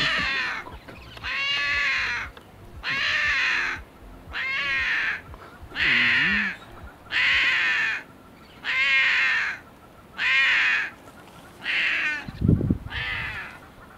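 Lion cub crying over and over in loud, high, wavering calls, each under a second long, about one every second and a half. There are some ten calls in all, and a short low thump comes near the end.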